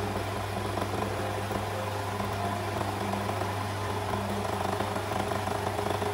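Sweety overlock machine (serger) running steadily at speed, stitching and finishing the curved edge of a fabric pocket as it is fed through.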